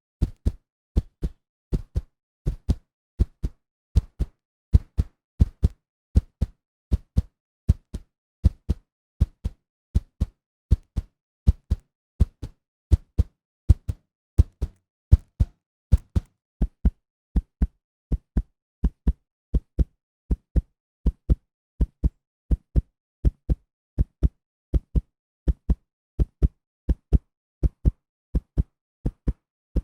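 Human heartbeat sound effect: steady paired lub-dub thumps, deep and even, at roughly 80 beats a minute.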